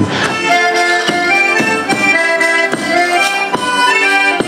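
Portuguese folk-dance music led by an accordion playing held, changing chords and melody notes, with sharp percussive strikes beneath it.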